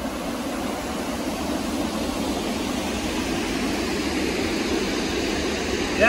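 A waterfall and its stream rushing steadily: water cascading over rocks into a pool, an even rush with no breaks.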